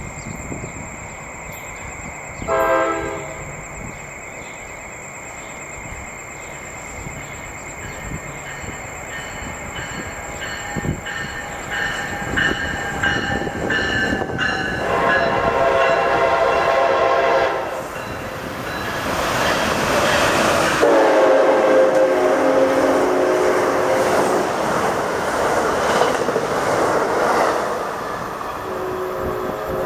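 An Amtrak train's air horn sounds a short blast, then two long blasts as the train approaches at speed. The second long blast is lower in pitch as the train passes. The rush of the passing train at speed runs between and under the long blasts, and a short blast comes near the end.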